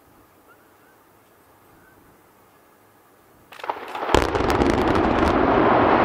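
Demolition charges firing in a quick run of sharp cracks about three and a half seconds in, at once followed by the loud, steady rumble of a steel-framed power-station boiler house collapsing.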